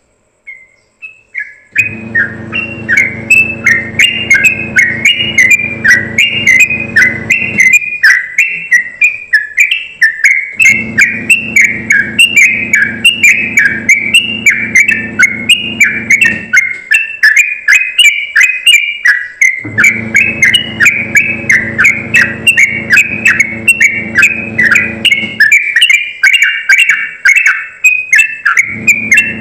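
Yellow-vented bulbul singing a rapid, unbroken run of high chirping notes, the fast 'ropelan' song, starting about two seconds in. A low steady hum underneath comes and goes in stretches of several seconds.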